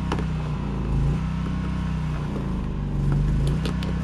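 Cold generator engine running unevenly, its pitch wavering up and down about once a second, with a few sharp clicks. It is cold-started and struggling, close to stalling.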